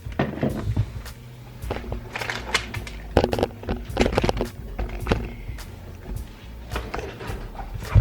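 Irregular knocks, clicks and clatter of kitchen things being handled while a smoothie is prepared, over a steady low hum.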